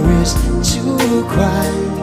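A song playing, with a drum hit about every half second under sustained instruments.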